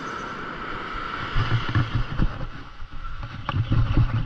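Spinning reel cranked hard with a fish on the line, over a steady hiss of surf. From about a second and a half in come irregular heavy low thumps of handling noise as the arms work the rod and reel.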